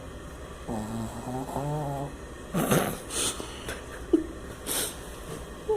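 Dog snoring in its sleep: a drawn-out, wavering pitched snore, then several short, noisy breaths.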